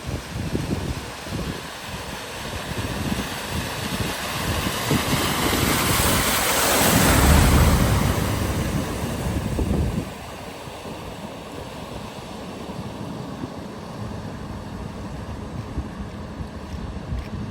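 A vehicle driving through deep floodwater, its wheels throwing up a rushing spray that builds to its loudest about seven seconds in and drops off sharply about ten seconds in, leaving a lower steady rush of water and wind.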